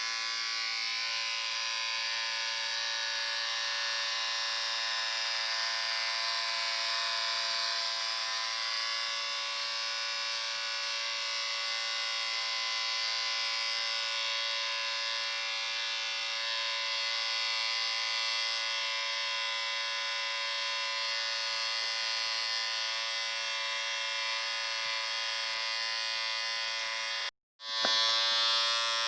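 Electric shaver running steadily, a constant buzzing hum with a hiss above it. About 27 s in it cuts out for a split second, then starts again slightly louder.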